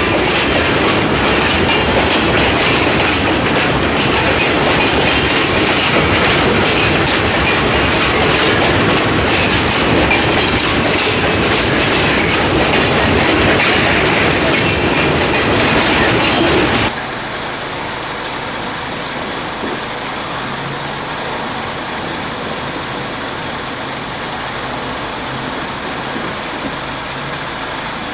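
Freight car wheels rolling past close by, a loud steady clatter of wheels over the rail joints. About two-thirds of the way through it cuts off abruptly to a quieter, steady rumble of an approaching train.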